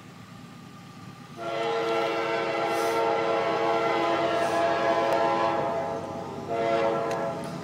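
Air horn of an approaching CSX locomotive, sounding several notes at once. One long blast starts about a second and a half in, breaks off briefly, then sounds again for a short blast near the end.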